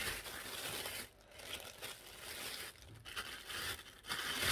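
Clear plastic packaging bag crinkling and rustling as a wrapped black part is handled and pulled out of it, in spells with short pauses.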